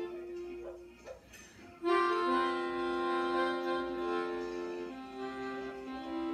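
Melodica improvising in held notes and chords. A chord dies away about a second in, a few faint clicks fall in the short pause, then a loud chord comes in about two seconds in and the upper notes change over a sustained lower note.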